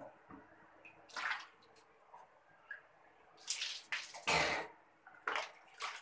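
Water splashing in a small tiled bathroom: about six short splashes or pours, the loudest and longest about four seconds in.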